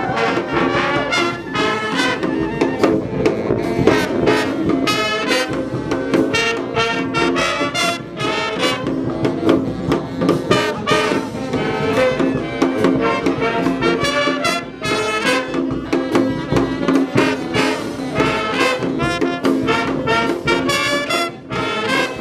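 Street brass bands playing together: trumpets, trombones and saxophones over drums keeping a steady beat.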